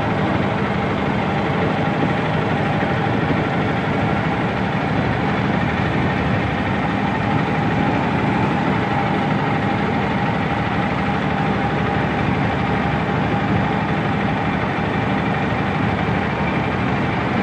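Engine of a motorised wooden river boat running steadily under way, a constant even drone.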